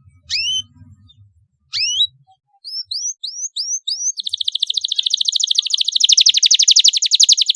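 Domestic canary singing: a few separate rising whistled notes, then a quicker run of rising notes about three seconds in, breaking into a fast, loud rolling trill at about four seconds.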